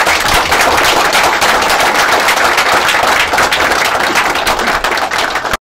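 Audience applauding loudly, a dense patter of many hands clapping that stops abruptly near the end.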